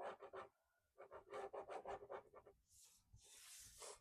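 Faint quick scratching strokes from handling merchandise being unboxed, then a soft rustle of paper or packaging near the end.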